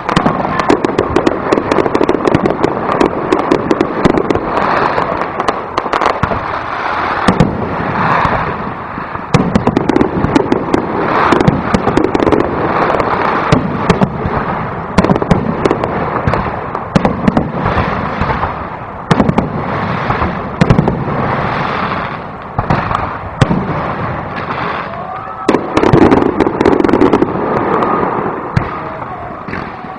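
Aerial fireworks display: shells bursting one after another without a break, with many sharp bangs and dense crackling from the stars.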